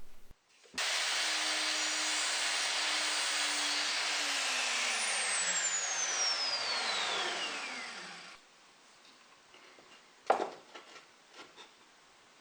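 Power saw switched on and run for several seconds while cutting plywood, then switched off, its motor whine falling steadily in pitch as the blade spins down to a stop. A sharp knock and a few light taps follow.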